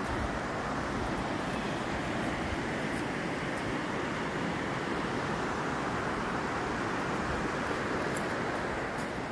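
Niagara River rapids rushing: a steady, even noise of white water.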